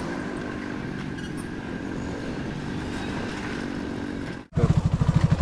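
Motorcycle engine running at a steady speed while riding, under road and wind noise. About four and a half seconds in, the sound cuts out briefly and returns as a louder, evenly pulsing engine beat.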